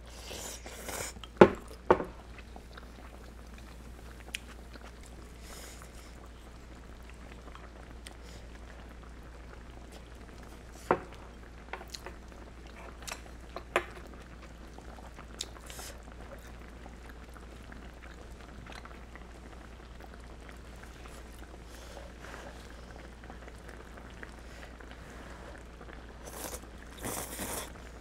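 Eating sounds: a spoon and chopsticks clicking sharply against the bowl and pot, loudest twice about a second and a half in and again several times a few seconds past the middle, with chewing between and broth slurped from a bowl near the end. A steady low hum lies underneath.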